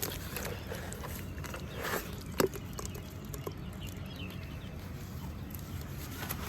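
Shallow water trickling over small pebbles, with scattered clicks and one sharp knock about two and a half seconds in.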